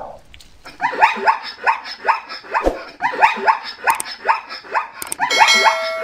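Zebra calling: a long run of short yelping barks, each rising in pitch, several a second, starting about a second in. A bright ringing chime sounds over the calls near the end.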